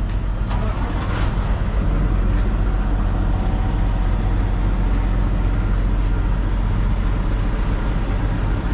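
Semi truck's diesel engine idling steadily with a deep, even rumble.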